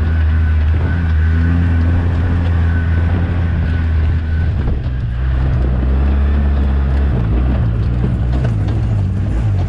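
A motor vehicle's engine running steadily under way, its low drone shifting in pitch about halfway through and again a couple of seconds later as the engine speed changes.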